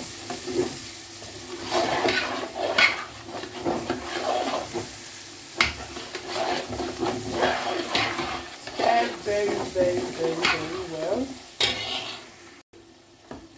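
A long metal spoon scraping and stirring a thick pepper-and-tomato stew base in a large aluminium pot, in irregular repeated strokes over the sizzle of the frying oil. The stirring stops shortly before the end.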